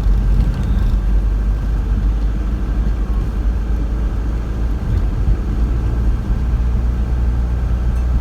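Steady low rumble of a road vehicle on the move, with continuous engine and road noise and no distinct events.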